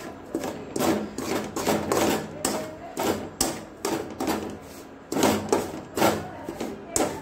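Metal spatula scraping and stirring semolina in ghee against a metal pan, in quick repeated strokes about two a second, as the semolina is roasted.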